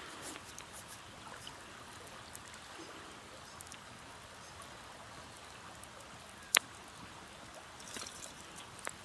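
Steady rush of a river flowing, with faint crackling from a small kindling campfire and one sharp pop about six and a half seconds in.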